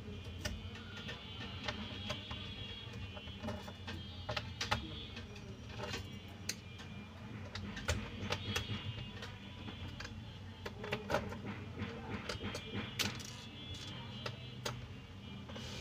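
Screwdriver unfastening the screws from an HP laptop's plastic base, with irregular clicks and taps of the tool on the case and of loose screws set down, over a steady low hum.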